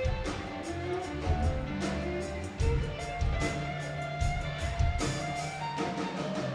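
Live country-rock band playing a song: guitar and fiddle over a steady drum beat.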